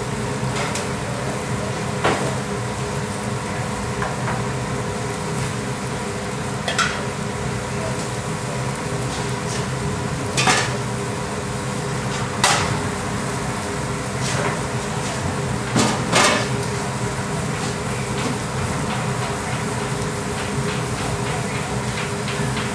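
Steady hum of a commercial kitchen's gas burners and machinery, with a curry simmering in a frying pan and about half a dozen sharp clanks of pans and utensils scattered through it.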